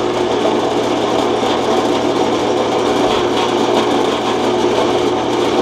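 Drill press running steadily at high speed with an endmill in the chuck, set up to plunge-mill a wooden block: a constant motor hum with several steady higher tones.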